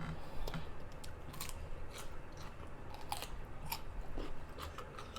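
Close-miked chewing of food, with moist crunches and small clicks scattered irregularly through the chewing.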